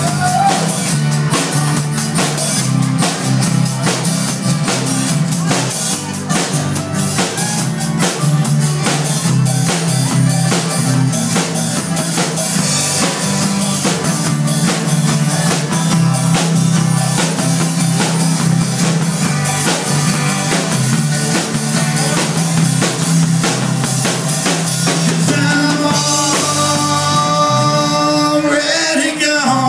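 Live rock band playing an instrumental passage: several strummed acoustic guitars, an electric bass and a drum kit keeping a steady beat.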